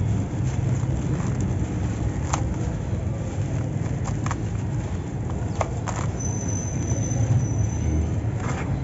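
Dry grey dirt crumbling and pouring through hands into a plastic basin, a soft grainy hiss with a few sharp crackling ticks, over a loud steady low mechanical rumble. A thin high whistle is heard for about two seconds near the end.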